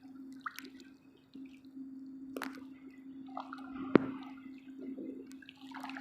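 Faint water drips and small splashes with a couple of sharp clicks, over a steady low hum.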